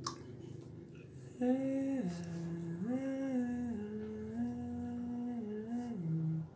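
A person humming a slow tune in long held notes that step up and down between a few pitches. It starts about a second and a half in and stops just before the end, after a brief click at the start.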